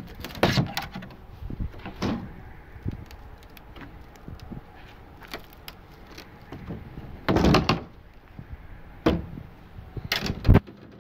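A plywood shipping crate being opened: its metal clips pried loose with a screwdriver and the wooden lid knocked and scraped, in several loud bursts of clatter and clicks, the longest about seven seconds in.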